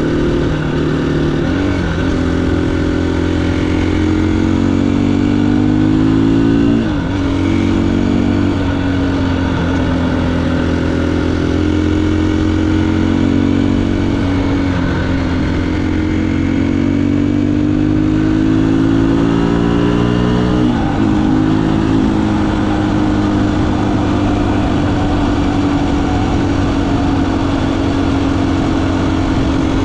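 Motorcycle engine under way, its pitch climbing as it accelerates and dropping sharply at gear changes about two seconds in, about seven seconds in and about twenty-one seconds in, then holding fairly steady.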